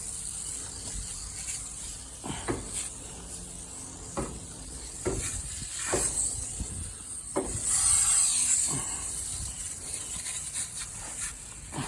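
Aerosol can of foaming coil cleaner spraying onto an air conditioner condenser's coil fins: a faint steady hiss, with a louder spray burst about eight seconds in. A few short knocks sound in between.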